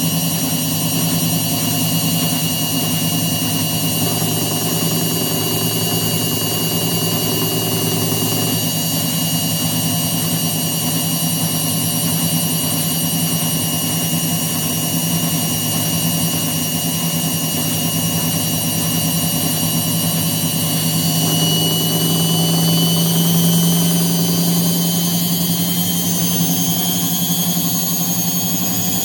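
Indesit WITL106 top-loading washing machine spinning: a steady motor whine and drum hum, the whine rising slightly in pitch about two thirds of the way through. The machine has a drum knock and vibration in spin whose cause is being sought.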